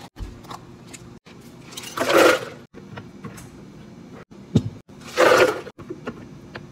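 Ice and drink ingredients poured into a plastic Blendtec blender jar: two short rushes, about three seconds apart, with a single low knock between them.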